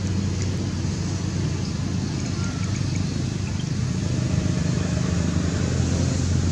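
A steady low mechanical hum, like a motor running, under a constant hiss. It holds even throughout with no breaks.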